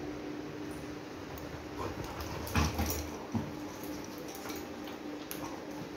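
Labrador puppy jumping down off a bed onto a tiled floor: a loud thump about two and a half seconds in and a smaller one just after, then light clicks of its claws on the tiles as it trots off.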